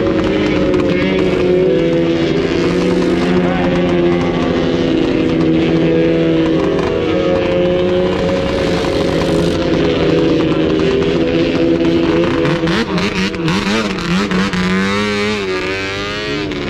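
Snowmobile engines running steadily at a low, even pitch. In the last few seconds the engine pitch wavers up and down as a sled is revved.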